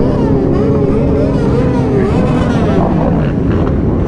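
Many motorcycle engines, mostly sportbikes, running together at idle, loud and steady, with some pitch wavering up and down as riders blip their throttles.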